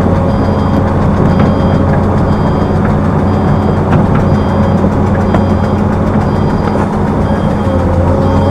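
Heavy diesel machinery engine running steadily, with a backup alarm beeping about once a second.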